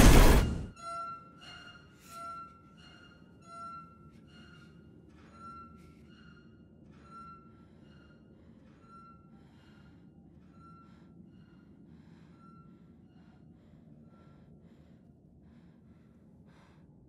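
A loud sound breaks off less than a second in. It leaves quiet film score: a single high note repeated about once a second, slowly fading, over a faint low hum.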